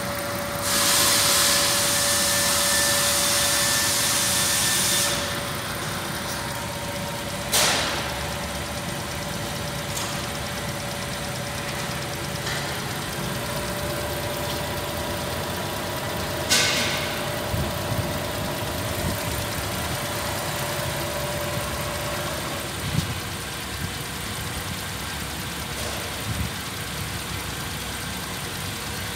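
Holden Commodore 3.6-litre V6 engine idling steadily, with a loud hiss over the first five seconds and a thin steady whine that fades out later on. Two sharp clicks stand out, about 7.5 and 16.5 seconds in.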